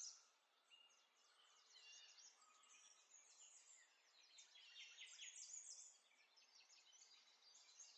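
Faint, busy chirping of small birds, many short chirps overlapping without a break.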